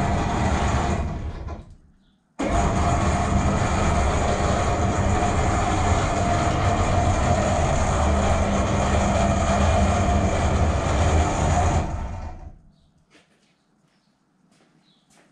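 Electric hoist's travel motor driving the trolley along the steel monorail: a steady electric hum with a rolling rumble. It runs down and stops about two seconds in, starts again abruptly a moment later, and runs for about ten seconds before winding down to a stop.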